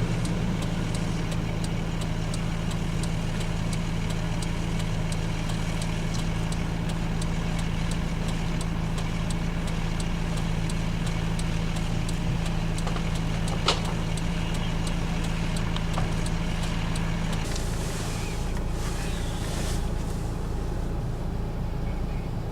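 A motor vehicle's engine idling with a steady low hum that drops away about three-quarters of the way through, leaving a lower rumble. Faint clicks run under it, with one sharper click in the middle.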